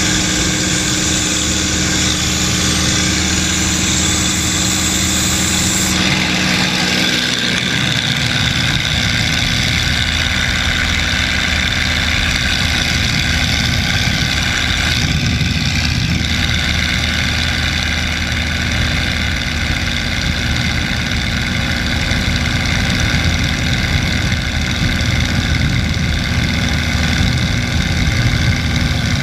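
Propeller fighter's V-12 engine and propeller droning steadily in flight, with wind rush, heard from inside the cockpit. About six seconds in the engine's tone shifts to a rougher, deeper note and the high hiss drops, as the power setting changes.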